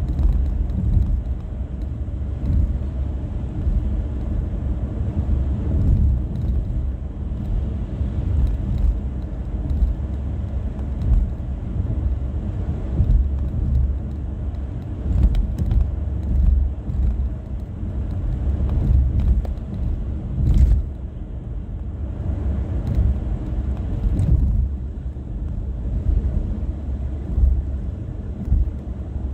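Steady low road and engine rumble inside a car cruising on a highway, with one brief thump about two-thirds of the way through.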